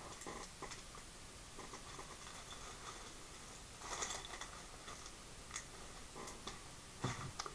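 Faint scattered clicks and rustles from a small plastic action figure being handled and put into its bag, with a louder cluster of clicks about four seconds in.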